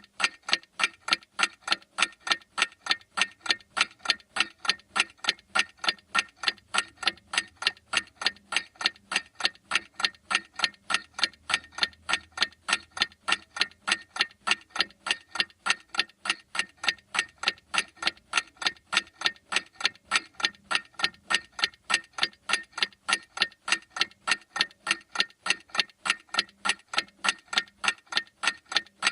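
A clock ticking in a fast, even run of sharp ticks, several a second, without a break.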